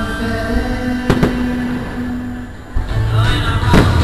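Aerial fireworks shells bursting with sharp bangs, one about a second in and a couple more near the end, over music that plays throughout.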